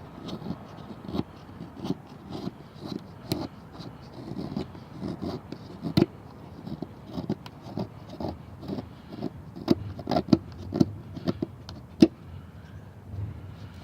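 Multitool knife blade shaving fatwood into curls: irregular short scraping strokes, a few a second, with several sharper louder strokes about six, ten and twelve seconds in.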